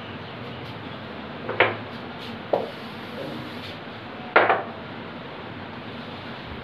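Blackboard being wiped with a duster and drawn on with chalk: three short scrapes or knocks, the last and loudest a little over four seconds in.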